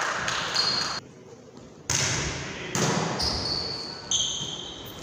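Volleyball being struck during a rally in a reverberant gym hall: three sharp hits on the ball about a second apart, each ringing on in the hall's echo. Brief high squeaks come between the later hits.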